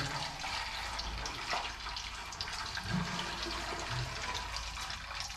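Snapper skin sizzling and crackling in a pot of hot oil as it is quickly fried; a steady hiss.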